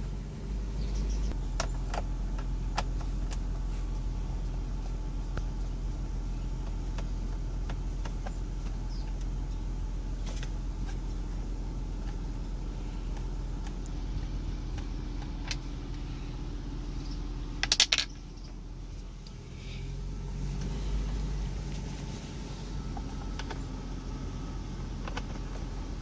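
Toyota 4Runner's 4.0-litre 1GR-FE V6 idling steadily, with scattered light clicks of hand-tool work on the steering column. A brief sharp clatter comes about eighteen seconds in.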